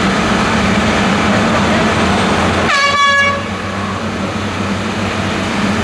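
Heavy construction equipment engines running steadily at a street drilling site. A vehicle horn toots once, briefly, about two and a half seconds in, and the machinery noise is a little lower after it.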